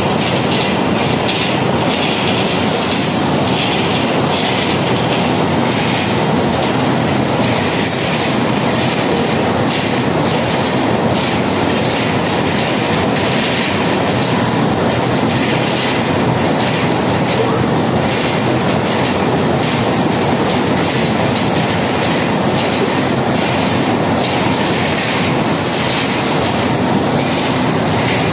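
Three-colour printing, slotting and die-cutting machine for cardboard sheets running at speed: a loud, steady mechanical clatter.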